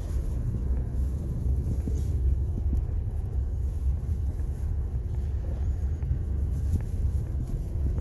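Car driving, heard from inside the cabin: a steady low rumble of engine and tyres on a snow-packed road, with a few faint knocks.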